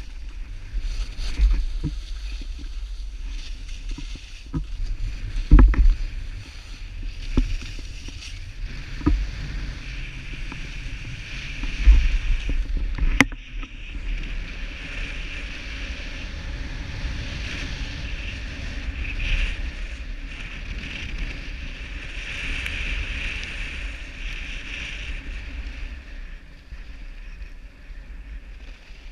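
Skis sliding and carving over groomed snow with a steady scraping hiss, over a low wind rumble on the microphone. Several knocks in the first half, the loudest about 5 and 12 seconds in.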